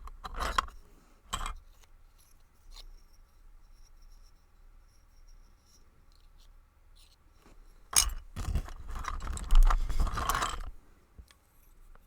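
Metal scraping and rattling of a shim and follower being worked into a brass padlock's core to push it out, with the shim jammed tight. There are two short scrapes at the start, then a longer burst of scraping and clattering about eight seconds in, lasting a couple of seconds.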